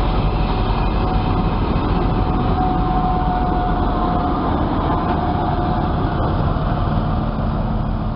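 Diesel locomotive and train cars passing close by: a steady heavy rumble of the diesel engine and wheels rolling on the rails. A faint steady whine sits over it for a few seconds in the middle, and the sound eases a little toward the end as the train draws away.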